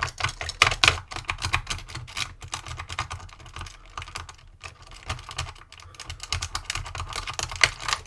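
A Sparrows Worm rake scraping in and out of a small five-wafer cabinet lock held under tension by a top-of-keyway tensioner, a fast, irregular run of light metallic clicks and scrapes as the rake skips over the wafers.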